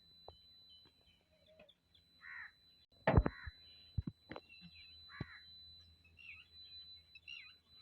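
A bird calling twice, with a sharp knock about three seconds in and a few fainter clicks.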